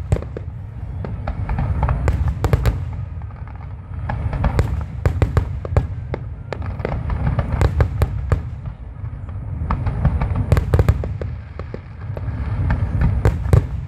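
Aerial fireworks bursting in quick succession: a deep rumble of booms with clusters of sharp cracks, swelling in waves every few seconds.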